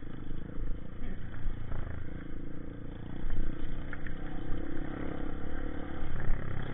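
Honda CRF150 dirt bike's single-cylinder four-stroke engine running under way on a rough dirt track, its note rising and falling with the throttle, heard from the rider's own bike.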